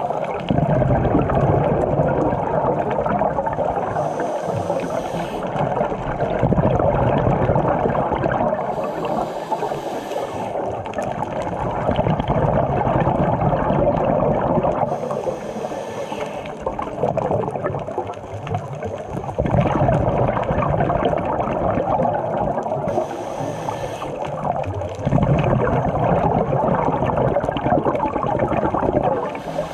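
Scuba diver breathing underwater through a regulator: a steady rushing of air and water, with a burst of exhaled bubbles gurgling out roughly every five to six seconds.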